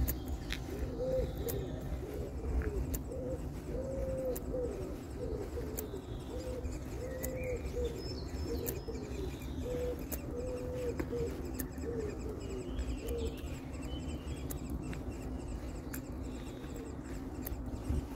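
A pigeon cooing over and over, a long run of short, low arched notes that stops about 13 seconds in, over a steady low background rumble.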